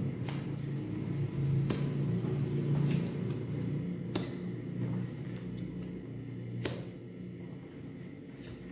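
Tarot cards being dealt and snapped down onto a wooden table: a handful of sharp clicks, the loudest near the end, over a low steady hum.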